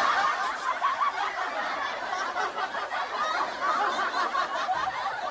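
Laugh track: a crowd of many voices laughing together at a steady level.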